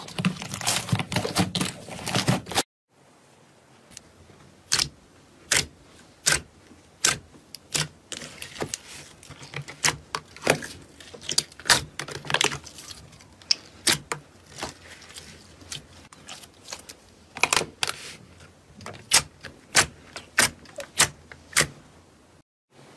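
Hands squishing glossy slime: dense wet crackling for the first couple of seconds, then, after a cut, a sheet of glossy slime pressed in a plastic tray giving sharp pops and clicks, about one or two a second, as trapped air pockets are squeezed.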